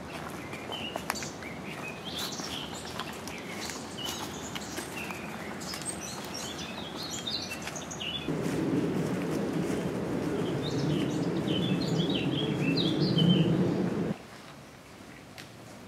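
Woodland songbirds chirping and twittering in quick short calls. About halfway through a louder low rustling noise joins them and then stops abruptly a couple of seconds before the end.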